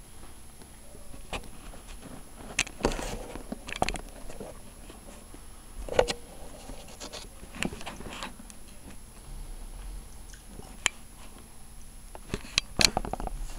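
Samsung WF9700N3W front-loading washing machine on its wool cycle, the drum turning gently with a load of wet blankets: irregular clicks and swishes of fabric and water, with a quick run of sharper clicks near the end.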